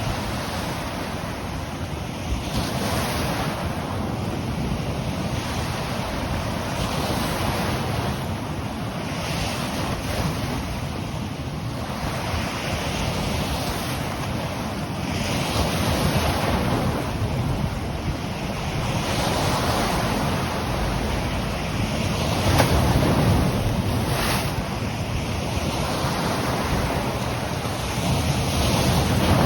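Ocean surf washing in on the shore, the noise swelling and easing every few seconds, with wind rumbling on the microphone.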